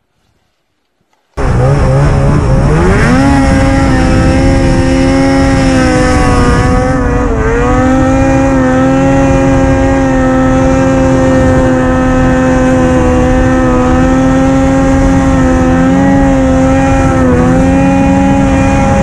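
Snowmobile engine running hard at high revs under way. It starts abruptly about a second and a half in, climbs in pitch, then holds steady. The revs dip briefly near the middle and again near the end.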